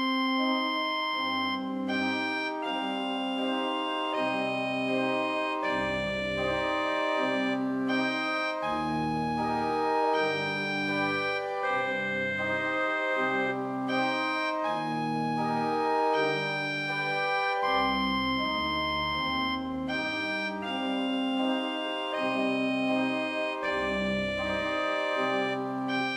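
Organ music: slow sustained chords over a low bass line, the chords changing about once a second.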